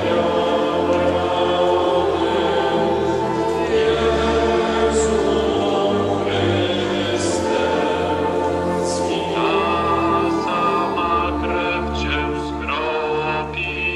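A group of voices singing a slow hymn together, each note held for a second or two.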